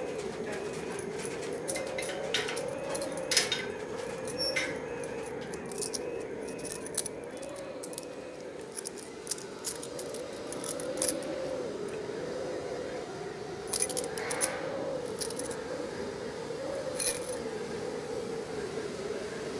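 Scattered small clicks and light rattles, as of hands handling a small object, over a steady, slowly wavering hum.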